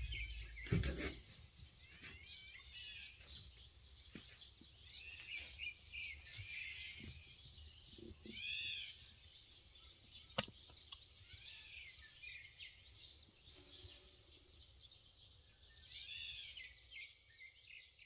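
Wild birds chirping, short arched calls coming every second or two over a faint outdoor hush. There are a few knocks in the first second and a single sharp click about ten seconds in.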